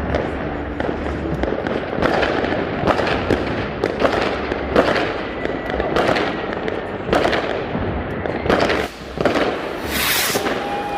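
Fireworks going off in a dense, continuous barrage of bangs and crackles, with a bright hissing burst near the end.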